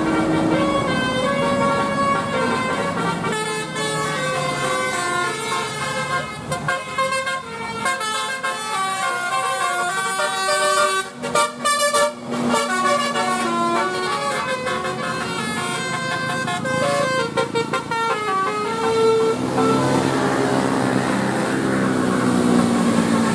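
Bus telolet horn, a multi-tone horn playing a tune as a run of stepping notes, some short and some held, with a short break about halfway through.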